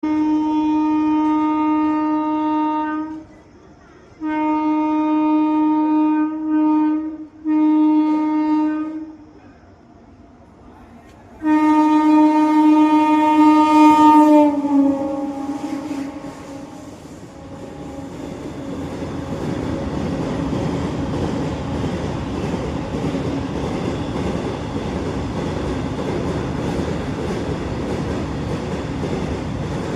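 Indian Railways WAG9 electric locomotive's horn sounding four long, shrill blasts, the last one sliding down in pitch as the locomotive passes at about 100 km/h. After that comes a steady rumble and clatter of the train running past.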